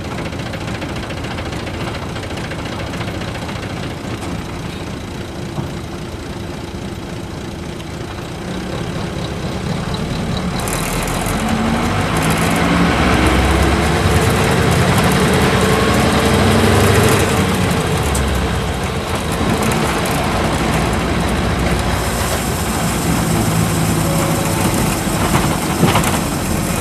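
Isuzu Cubic city bus's V8 diesel engine heard from inside the bus: running low and steady at first, then pulling harder and rising in pitch as the bus picks up speed. Tyre and road noise grow louder from about ten seconds in.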